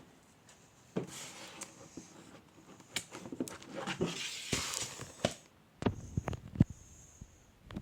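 Irregular rustling with many short clicks and knocks, starting about a second in, with a brief lull shortly before the end.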